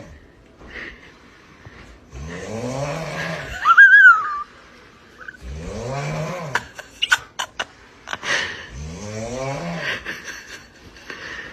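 Loud snoring: three long snores whose pitch rises and then falls, a few seconds apart. About four seconds in, a short high-pitched squeal that rises and falls is the loudest sound. A few sharp clicks come around seven seconds in.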